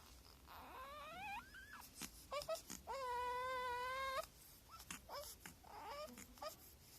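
Newborn baby fussing: rising whimpers about a second in, a few short sharp sounds, then one long held cry lasting just over a second, and softer whimpers near the end.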